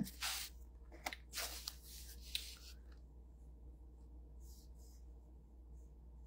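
Soft rustling and handling noises, a few brief scrapes and light clicks over the first three seconds, then faint steady room hiss.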